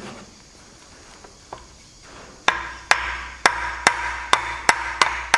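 A metal tool tapping repeatedly on the gearbox's bolted steel side cover, a sharp ringing knock about two to three times a second, starting a little past halfway. The cover is being shocked loose because it is stuck to the cast housing with sealant.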